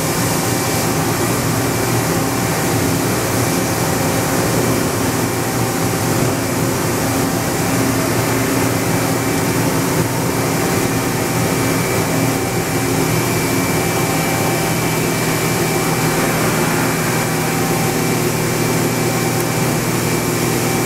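Mori Seiki NH5000 horizontal machining center running, a steady whirring hum of its motors, pumps and fans with a thin steady high whine over it.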